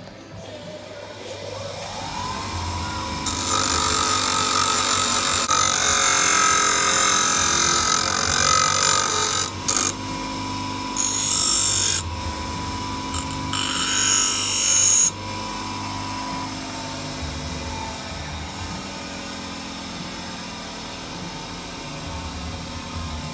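Bench grinder motor spinning up with a rising whine, then running steadily while a metal engine bracket is held to the stone: one long stretch of grinding, then two shorter passes. The whine fades away after the last pass.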